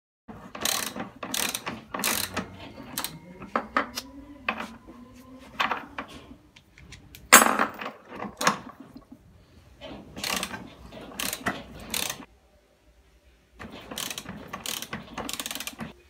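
Compressed air let out of a home-made air tank, a recycled water-filter housing, in short hissing bursts through its tap and coiled hose. The bursts come in clusters, roughly two a second, with the loudest one about seven seconds in and a short pause before the last cluster.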